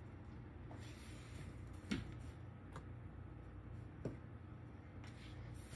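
Quiet room hum with three faint, short taps, the first about two seconds in the loudest.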